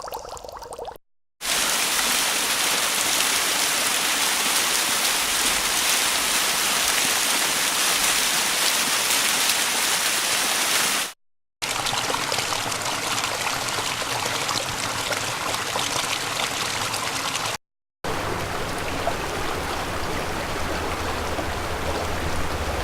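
Running water, a stream or waterfall, in three separate recordings, each a steady rushing noise, cut apart by brief silences. The last recording carries more low rumble. A different, bubbling water sound ends just before the first silence.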